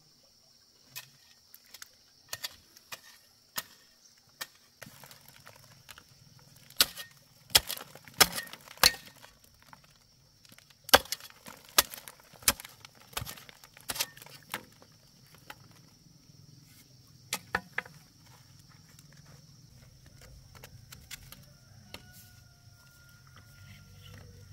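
A run of irregular sharp knocks and taps from hand work, thickest in the middle and tailing off to a few near the end, over a steady high drone of insects.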